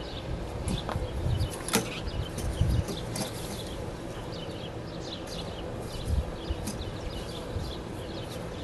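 Small clicks and knocks of hands working rubber coolant hoses and a replacement heater control valve into place in a motorhome's front engine compartment, over a steady low rumble.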